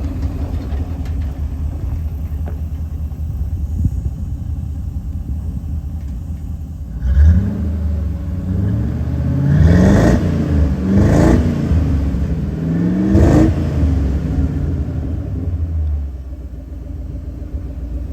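Truck engine idling through a freshly built dual exhaust with MAC mufflers and an H-pipe, then revved three times from about halfway, the pitch climbing each time, before it drops back to a steady idle near the end.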